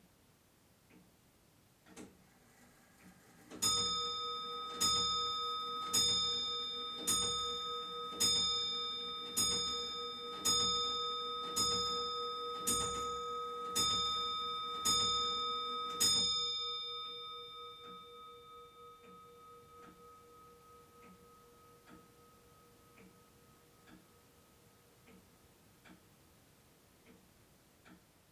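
A clock striking twelve, one ringing chime stroke about every second, its tone dying away slowly after the last stroke. The clock ticks faintly about once a second before and after the strikes.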